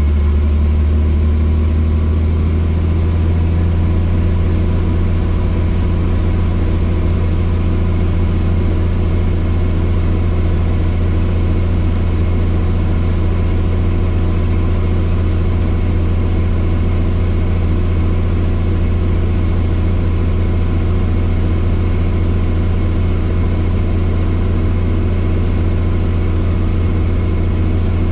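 Helicopter in flight heard from inside the cabin: a steady, loud, low drone of engine and rotor with several steady tones above it.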